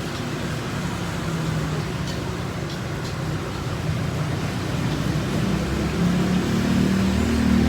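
Motor vehicle engine running amid steady road traffic noise, growing louder in the last couple of seconds.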